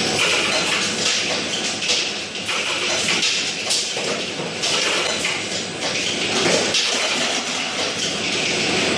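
Automatic bottle capping machine and its conveyor running on a capsule bottle packing line: a steady mechanical clatter of many small clicks and knocks, with plastic bottles and caps rattling along.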